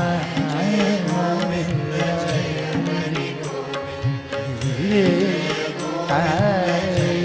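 Indian devotional bhajan music: a melodic line gliding and bending in pitch over a steady held drone, with light percussion strikes.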